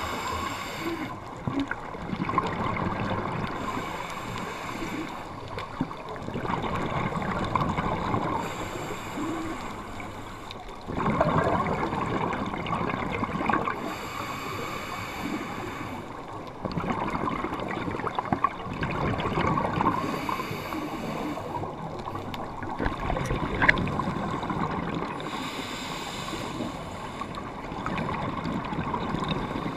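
Scuba diver breathing through a regulator underwater: slow cycles of hissing and bubbly exhaust gurgling repeat about every five to six seconds.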